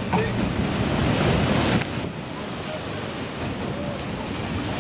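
Wind buffeting the microphone over ocean waves and surf, with gusts loudest in the first two seconds.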